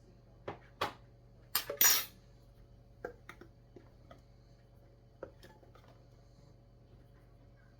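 Kitchen utensils knocking and clinking as flour is scooped and measured into a mixing bowl, with a louder brief scrape about one and a half seconds in and scattered light clicks after.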